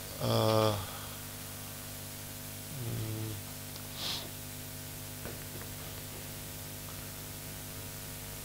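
Steady electrical hum, with two short wordless voiced sounds from a man, hesitation noises, about half a second in and again around three seconds, the first falling in pitch. A brief hiss comes about four seconds in.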